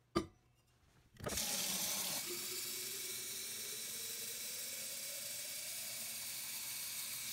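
A short knock, then a kitchen faucet runs into an insulated steel water bottle from about a second in, with a filling note that rises steadily as the bottle fills.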